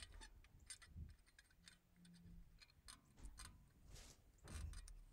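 Faint, scattered light clicks of a metal brake anti-rattle clip being fitted against a brake caliper.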